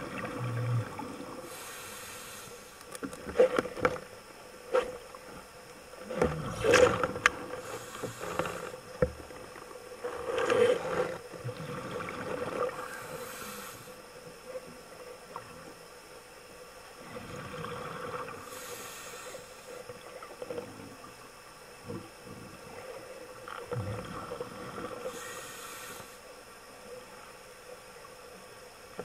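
Underwater sound of a scuba diver's breathing: a hiss about every five to six seconds, with bubbly gurgling clusters between. There are scattered sharp knocks and a steady faint hum underneath.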